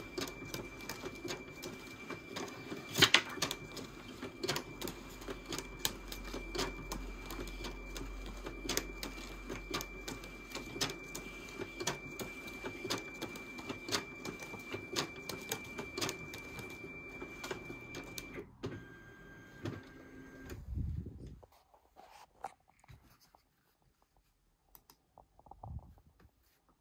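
Canon imageFORMULA RS40 photo scanner feeding and scanning prints: a steady motor hum with a constant high whine and frequent sharp clicks as the photos pass through, one click much louder about three seconds in. About eighteen seconds in the tone changes briefly, then the scanner stops, leaving only a few faint clicks.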